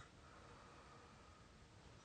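Near silence between snores: only faint steady room noise.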